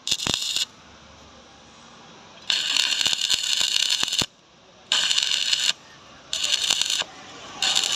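Stick-welding arc crackling and sizzling in five short bursts, each from about half a second to nearly two seconds long. The arc is struck and broken between them, leaving quieter gaps.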